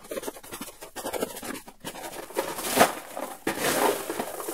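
Hands digging through a cardboard box full of small tumbling-media pellets, the pellets shifting and clattering in a dense, irregular stream of small clicks, loudest from about two and a half to four seconds in.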